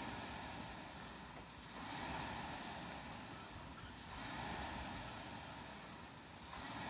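Air rowing machine's fan flywheel whooshing, swelling with each pull of the stroke and fading on the recovery, about once every two seconds.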